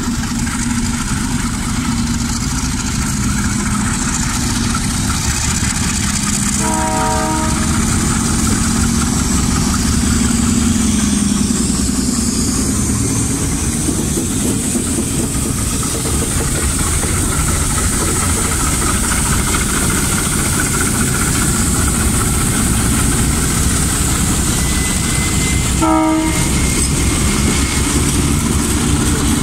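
Two diesel locomotives hauling a freight train rolling slowly past at close range, engines running with a steady heavy rumble and wheels on the rails. Two short horn blasts sound, about seven seconds in and again near the end.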